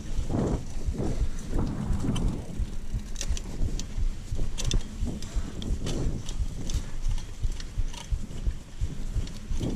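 Mountain bike ridden over a bumpy dirt trail: irregular thuds from the tyres and suspension hitting roots and dips, with sharp rattles and clicks from the frame and chain, over a steady low rumble.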